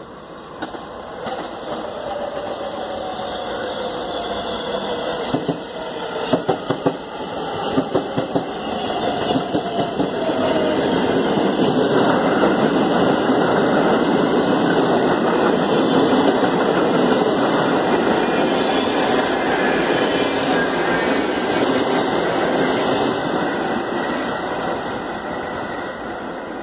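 Two New York City subway trains, an R68A and an R160B, approaching and running past the platform: a rumble of steel wheels on rail that builds steadily, with a cluster of sharp clacks about six to eight seconds in. It then holds as a steady loud rushing noise and eases off near the end.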